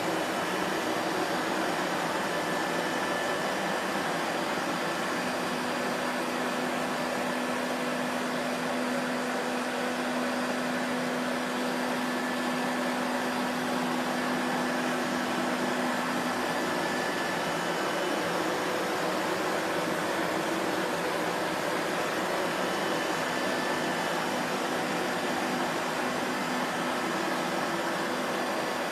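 Vacuum cleaner motor running steadily: an even rushing of air over a low motor hum, whose pitch shifts slightly now and then.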